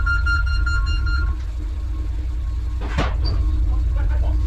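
A truck's engine running with a steady low rumble, with one sharp clunk about three seconds in. A high held tone stops just over a second in.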